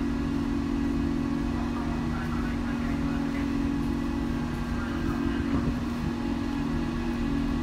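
Steady low hum of the berthed 14,125-ton car ferry Lavender's machinery running, a constant drone of a few fixed tones over a deeper rumble. Faint indistinct sounds come and go over it a couple of seconds in.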